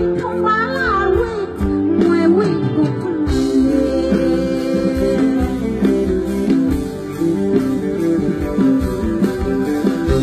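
Live band music with a woman singing over it for the first three seconds or so, then an instrumental break with the band playing on without the voice.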